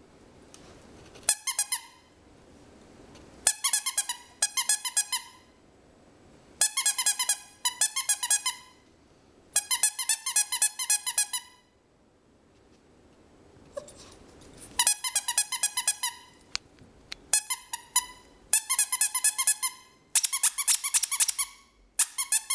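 Squeaky dog toy squeezed in quick bursts of rapid, high-pitched squeaks, several squeaks a second, with short pauses between the bursts.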